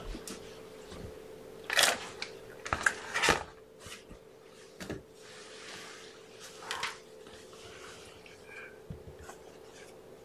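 Several brief rustling and handling noises, the loudest close together about two to three and a half seconds in, over a steady low hum.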